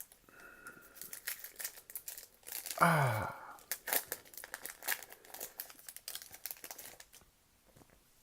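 Plastic trading-card pack wrapper being torn open by hand and crinkled, a dense run of crackles, with a short low sound falling in pitch about three seconds in.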